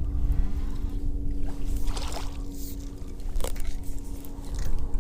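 Wind rumbling on the microphone over a steady boat motor hum, with two brief water splashes near the middle as a bass hooked on a jerkbait is brought in.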